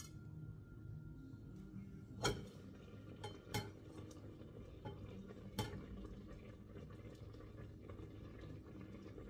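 Stainless steel pot lid clinking against the rim of the pot as it is taken by its knob and lifted: about four light metallic clinks spread over a few seconds, the first the loudest, over a faint steady low hum.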